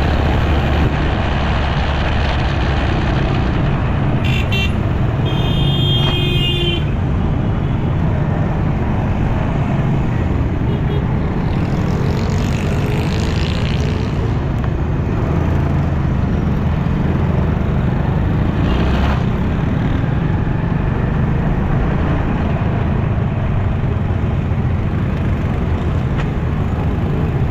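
Motorcycle engine running steadily at low speed amid city traffic noise, heard from the bike. A vehicle horn toots a few times around five seconds in, and a fainter honk comes a few seconds later.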